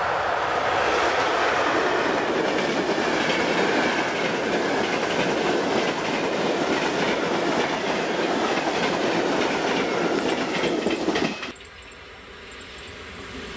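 ZSSK class 350 electric locomotive and its passenger coaches passing close by at speed, a loud steady rolling rumble with the clickety-clack of wheels over rail joints. About eleven seconds in, it cuts off abruptly and a second electric-hauled passenger train is heard approaching, growing steadily louder.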